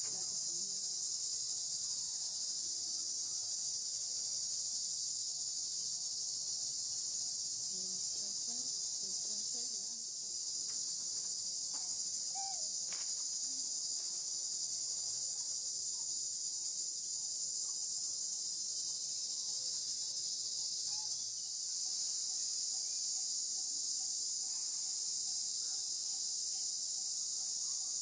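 Steady, high-pitched chorus of insects, with a few faint short chirps and clicks about halfway through.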